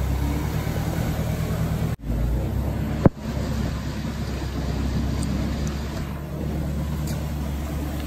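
1953 Westinghouse automatic washer running just after being switched on: a steady electric-motor hum with a hiss of water, and one sharp click about three seconds in.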